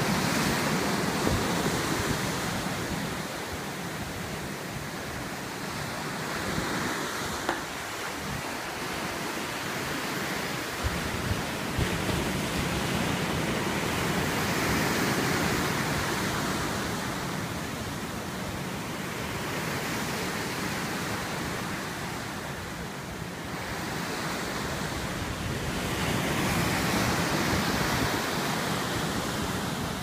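Pacific Ocean surf breaking and washing up onto a sandy beach: a continuous rush of water that slowly swells and eases as successive waves come in.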